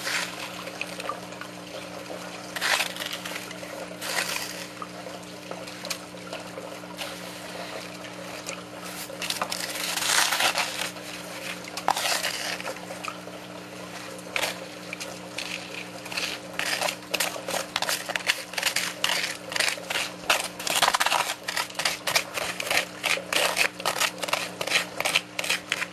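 Water running through an underflow sluice trap over a steady low hum, while a spoon scrapes and knocks in a bowl, dumping sand, black sand and gravel into the trap. The scraping comes in scattered strokes at first and turns rapid and repeated in the second half.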